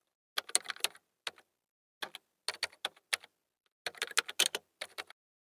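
Computer keyboard typing clicks in five quick bursts separated by dead silence, stopping a little after five seconds in.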